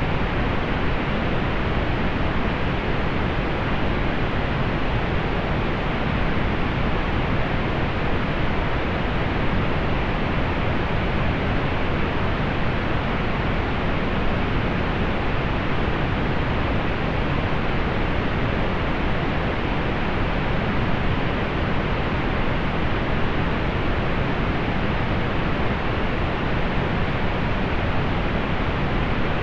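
Steady pink noise: an even, unchanging hiss, fuller in the low end and rolled off in the highs.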